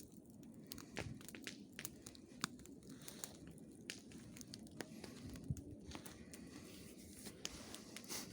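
Faint, sparse crackles and ticks from a burning log campfire, heard irregularly over a low, steady hiss.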